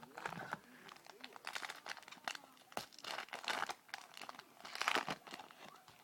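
Crinkling and rustling of a foil trading-card pack wrapper and cards being handled: an irregular string of crackles and rustles, loudest in bursts about a second and a half in, around three seconds and near five seconds.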